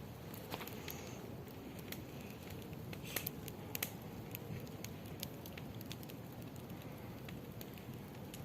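Wood campfire crackling, with scattered sharp pops and snaps, a few louder ones about three and four seconds in, over a low steady hiss of burning.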